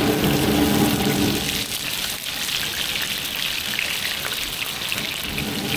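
Frying buns sizzling and crackling in a large flat pan of Wuhan qishui buns (steam-fried buns). A low hum under it stops about one and a half seconds in.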